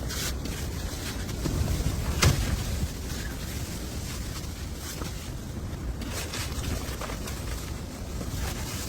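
Blizzard wind blowing steadily and rumbling on the microphone, with a short sharp click about two seconds in.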